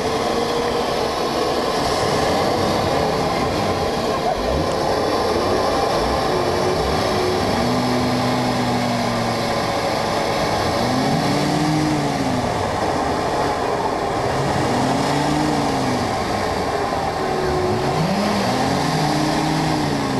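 Many car horns sounding together in a loud, continuous, dense mass of tones, part of a concerto scored for car horns and ensemble. About halfway through a low note is held, then a low tone swoops up and down three times.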